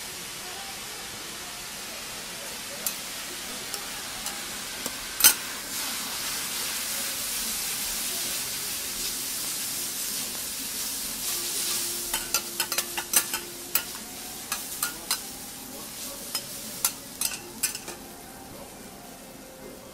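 Yakisoba noodles and cabbage sizzling on a teppanyaki iron griddle, stirred and tossed with two metal spatulas that clack and scrape on the plate. The sizzle swells toward the middle and then fades. There is one loud clack about five seconds in, and a quick run of spatula clacks through the second half.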